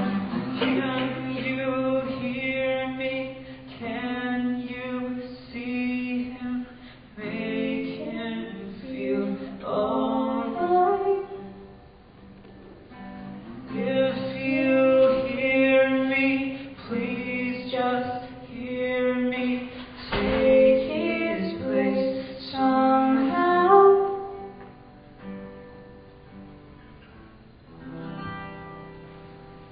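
A live song: singing with an acoustic guitar accompaniment. It gets quieter over the last few seconds.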